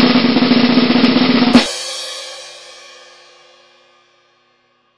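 Snare drum roll for about a second and a half, ending in a loud cymbal crash that rings and fades away over about two seconds: a drum-roll reveal sting.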